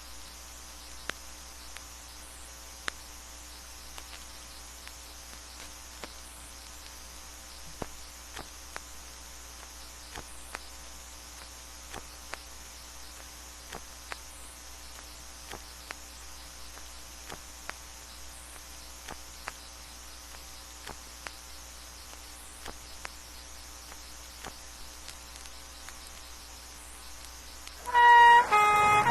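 Faint record surface noise, a steady hiss and low hum with scattered clicks and pops. Near the end a fire engine's two-tone horn starts loudly, alternating between two pitches.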